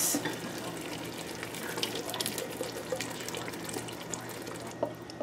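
Thick tomato stew sputtering in a steel pot on the stove: a steady hiss with many small scattered pops.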